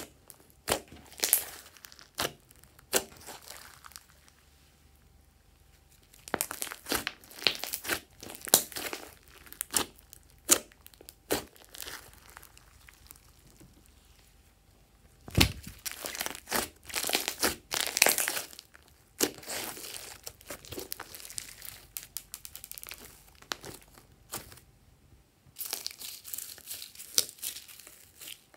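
Hands poking, pressing and stretching glossy slime, which gives off sticky crackling and popping clicks. The clicks come in bursts with quieter gaps between them.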